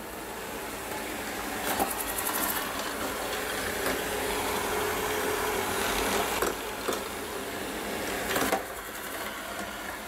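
ILIFE A4 robot vacuum running over a tiled floor: the steady whir of its suction motor and brushes, with a few light knocks.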